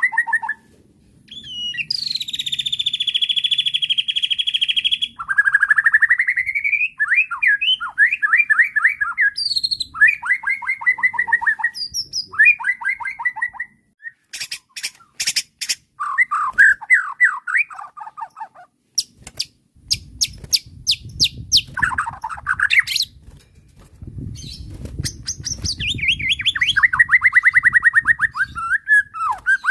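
White-rumped shama (murai batu) in a long, agitated song with mimicked phrases: fast trills and runs of repeated notes, a long buzzy note about two seconds in, and a cluster of sharp clicks about halfway. A low rumble runs under much of the second half.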